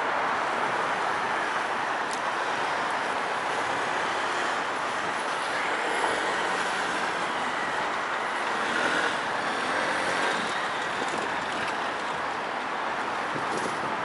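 Steady road traffic noise: cars and other vehicles running through a city intersection, an even hum of engines and tyres with no single vehicle standing out.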